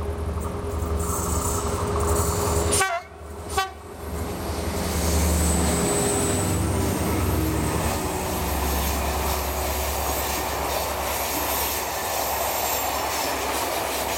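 SNCF CC 72000 diesel locomotive working under load up a grade as it passes, its engine a steady low drone, followed by Corail coaches rolling by with wheel and rail noise. The sound breaks off briefly about three seconds in.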